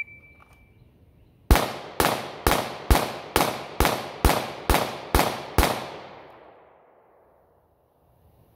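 Ten 9mm shots from a Glock 19X pistol fired in a rapid, even string, a little over two a second. Each shot rings out with an echo off the surrounding woods, and the echo fades about a second after the last shot.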